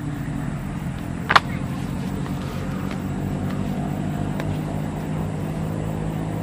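Steady low hum of an engine running, with one sharp click about a second and a half in.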